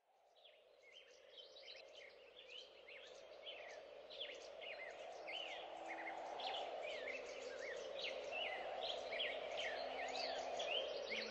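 Many small birds chirping in a dense, overlapping chorus over a steady wash of sea that swells and ebbs. It fades in from silence and grows louder over the first several seconds.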